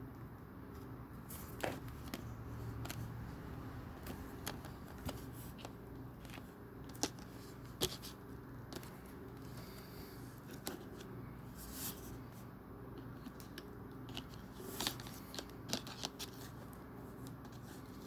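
Small plastic Lego pieces clicking and rattling as they are handled and pressed together, a scattered run of sharp clicks over a steady low hum.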